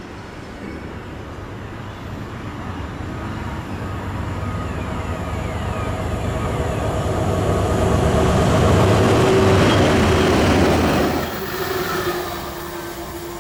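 A pair of Class 68 diesel locomotives with Caterpillar V16 engines coming through the station and passing at line speed. Their engine drone and the rail noise build steadily, are loudest about nine to ten seconds in, then drop off sharply about eleven seconds in as they go by.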